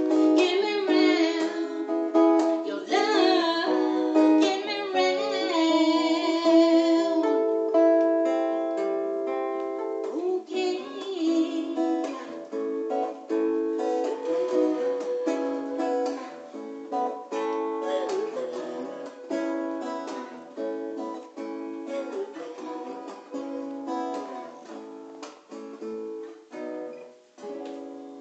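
Live acoustic folk song: acoustic guitar picked and strummed, with a woman singing over the first several seconds. After that the guitar plays on alone through the closing bars and grows quieter toward the end.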